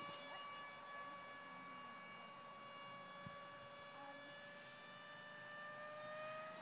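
Faint, steady whine of the 55 mm electric ducted fan on a small RC F-35 jet in flight, one thin high tone with overtones, rising slightly in pitch near the end.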